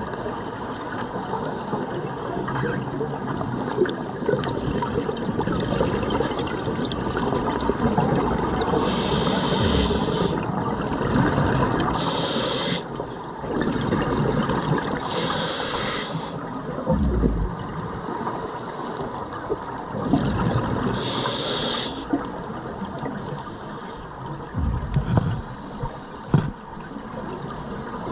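Scuba regulator breathing underwater: four short hisses of breath through the regulator and low bubbly rumbles of exhaled air, over a steady wash of water noise.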